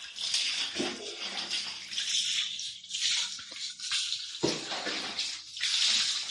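Running water splashing onto a wet dog's coat and the tiled floor during a bath, coming in uneven surges.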